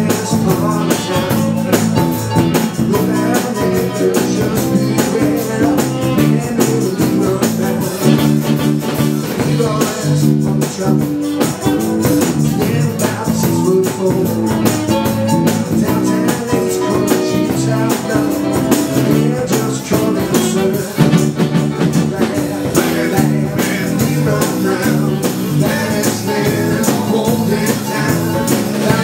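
Live band playing a continuous rock number, guitar to the fore over drums.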